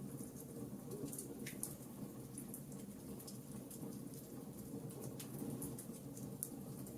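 Wood fire crackling in a fireplace: a steady low rumble of the flames with irregular sharp pops and snaps scattered throughout.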